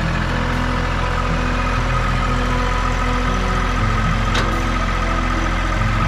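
Kubota L2502 compact tractor's three-cylinder diesel idling steadily, unattended. A single sharp click about four and a half seconds in.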